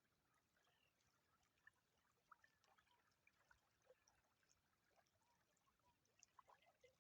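Very faint nature ambience: many short, scattered chirps and calls over a low hiss.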